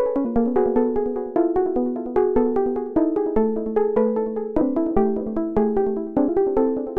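Background music: a keyboard or synthesizer playing quick, evenly paced plucked-sounding notes over a melody.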